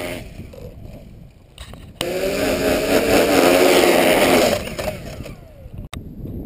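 Walkera Tali H500 hexacopter's six electric motors and propellers spin up loud with a wavering buzz for about two and a half seconds, then wind down, with a sharp click near the end. The strange motor sound is put down by the owner to a weak joint between the upper and lower body shell at the arms.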